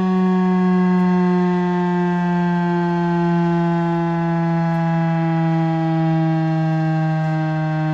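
Outdoor tornado warning siren sounding one continuous, loud tone with many overtones, its pitch drifting slowly downward.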